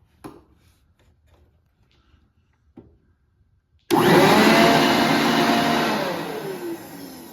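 Toro Ultra Blower Vac's electric motor and metal impeller switched on through a newly fitted light switch: it starts abruptly about four seconds in with a rising whine and rush of air, runs for about two seconds, then is switched off and winds down, its whine falling in pitch.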